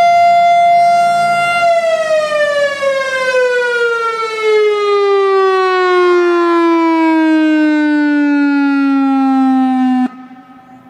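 Analog Whelen WS-3016 electronic outdoor warning siren ending its steady Alert tone. It holds one pitch, then about two seconds in its pitch glides steadily down in a wind-down, and it cuts off suddenly near the end.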